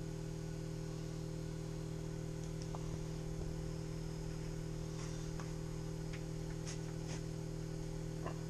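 Steady low hum with several even tones, and a few faint clicks in the second half.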